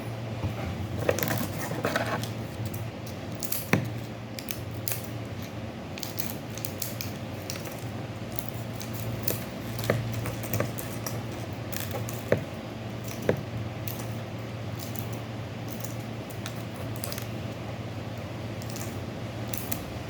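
Scattered light taps and clicks of small utensils being handled, with a few sharper knocks, over a steady low hum.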